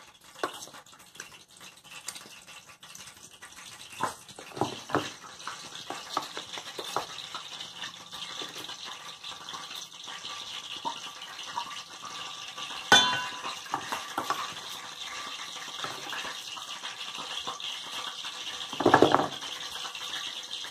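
Steel spoon scooping gram flour and scraping against a small glass cup and a steel bowl, with scattered soft scrapes and clicks over a steady hiss. About two-thirds through, the spoon strikes with a sharp ringing clink, and near the end comes a heavier short knock, the loudest sound.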